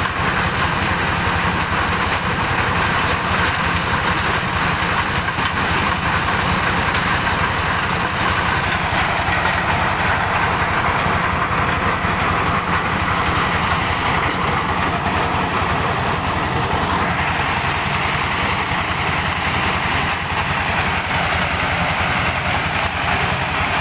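Diesel-driven mobile corn sheller running steadily as it shells corn, a dense even machine noise over the engine's rapid low throb.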